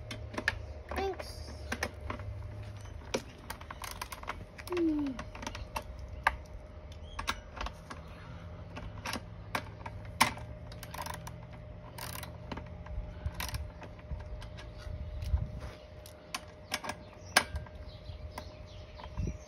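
Socket ratchet clicking in irregular single clicks and short runs as the nuts holding a lawn mower's recoil pull-starter housing are tightened.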